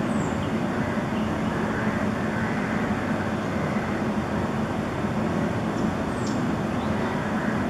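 Steady rumbling background noise, like distant traffic, with a few faint, short high bird chirps that fall in pitch.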